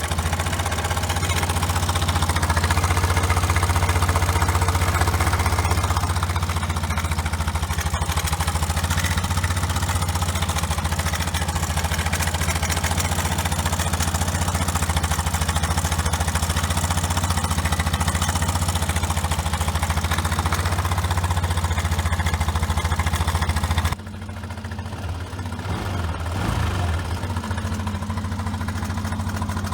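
Suzuki Address V125 scooter's single-cylinder four-stroke engine idling steadily. About 24 seconds in, it cuts abruptly to a quieter, less even engine sound.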